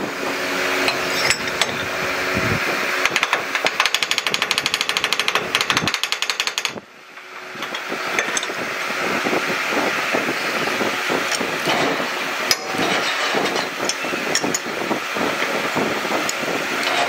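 Machine-shop machinery running steadily. A rapid, even clatter starts about three seconds in and stops abruptly near seven seconds. The noise then builds back up and carries on, with scattered sharp metal knocks and clinks.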